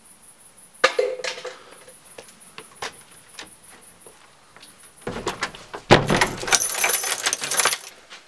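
A house door being opened and shut: a sharp clack of the latch with a short metallic ring about a second in, a few light clicks and knocks, then a loud clatter from about five seconds in with a heavy bang near six seconds, as the door is slammed.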